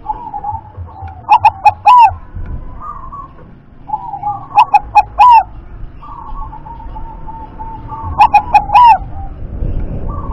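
Zebra dove (perkutut) singing: three phrases of short, ringing coos about three and a half seconds apart, with softer cooing calls between them.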